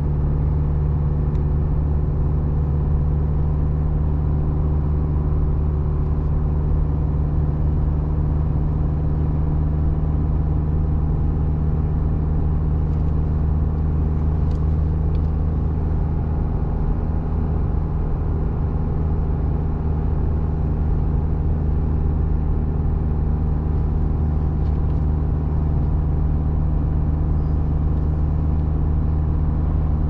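Car engine and road noise: a steady, unchanging drone with a strong low hum as the car pulls up a long, steep grade under sustained load.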